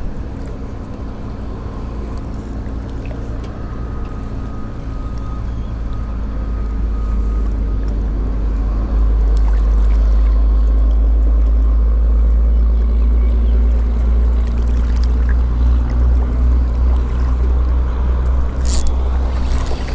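Motorboat engine running steady, growing louder about halfway through, with a heavy low rumble.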